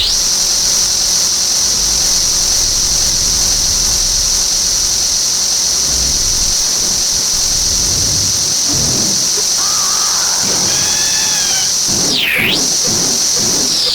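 Circuit-bent toy sound circuits giving out a steady high-pitched electronic screech over a hiss. Faint warbling tones come in about two-thirds of the way through, and near the end the pitch swoops sharply down and back up.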